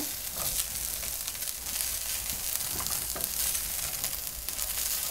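Minced beef and finely diced carrots and green bell pepper sizzling in a hot frying pan, stirred and turned over with a silicone spatula.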